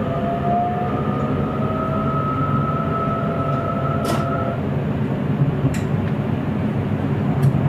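Electric Sprinter train running, heard from the driver's cab: a steady rumble with a faint whine rising slowly in pitch that stops about halfway through. Three sharp clicks sound in the second half.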